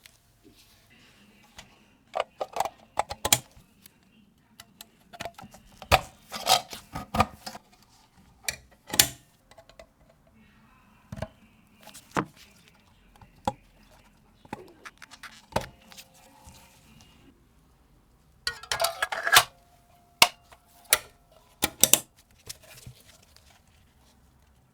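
Restored Ensign Ful-Vue box camera's shutter being fired and the camera handled: sharp mechanical clicks and small metallic clinks, coming irregularly and sometimes in quick clusters. The shutter is working properly again.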